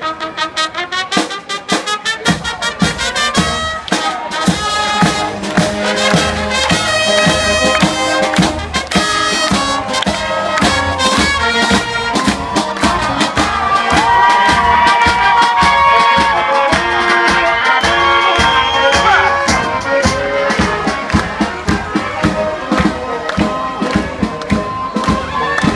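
Brass band with drums playing a march to a steady beat, with a long held note about halfway through.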